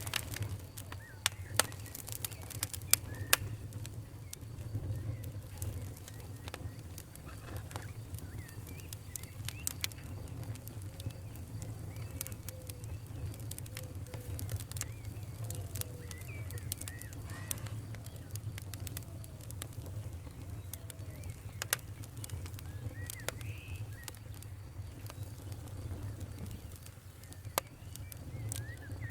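Wood fire in a fireplace crackling, with a steady low rumble and scattered sharp pops, a few louder snaps in the first few seconds.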